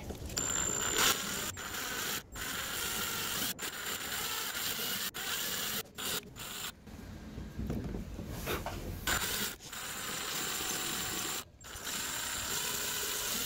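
Power drill running in reverse with a left-hand drill bit, grinding into the snapped threaded stud of a car antenna stuck in its roof-mount base. The drill runs steadily and stops and restarts several times.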